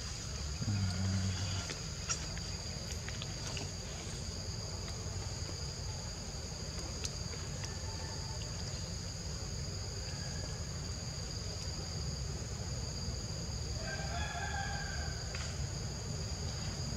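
Steady high-pitched insect drone over a low rumble, with a short bird call about fourteen seconds in.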